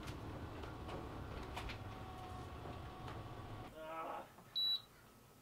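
Travel-trailer slide-out motor running slowly while the wall switch is held, a steady low drone that stops a little before four seconds in; the slowness is put down to weak house batteries. A short high beep sounds near the end.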